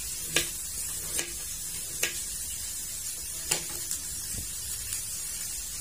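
Knife cutting raw potato on a plastic cutting board, four sharp knocks at uneven intervals, over a steady sizzle of fish frying in oil.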